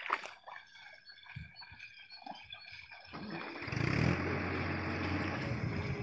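Faint wet clicks and splashes from a bullock team working a flooded paddy field, then about three seconds in a louder, steady motor-engine rumble comes up and holds.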